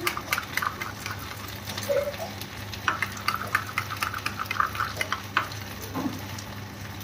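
Steel spoon stirring and scraping against a ceramic bowl in rapid, irregular clinks, mixing cornflour and water into a thin slurry.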